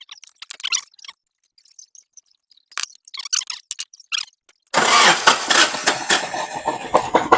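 A misfiring car engine is started about two thirds of the way in and runs roughly with a fast, uneven pulsing. Before that there are a few scattered clicks and taps.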